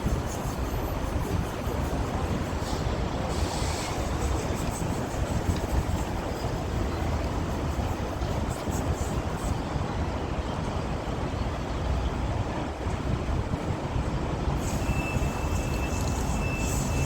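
Rail maintenance vehicle's engine running steadily with a low rumble. A thin high whine joins in near the end.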